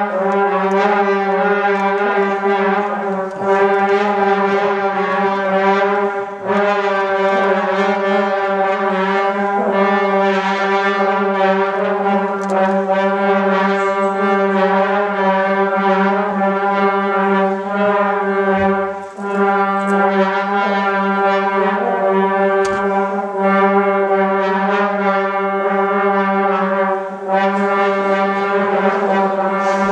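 Trombone trio holding long, overlapping sustained tones as a dense, steady chord, with slight wavering in pitch; the sound dips briefly a few times as notes are re-entered.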